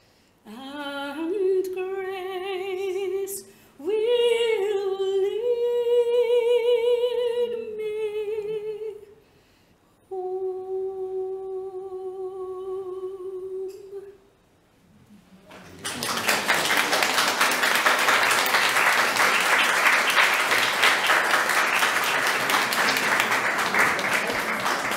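A woman singing solo with wide vibrato, in a few phrases that end on a long held note. After a short pause the audience breaks into applause that continues.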